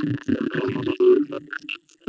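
Alien-voice sound effect: choppy, speech-like gibberish syllables over a low droning tone, breaking off briefly near the end.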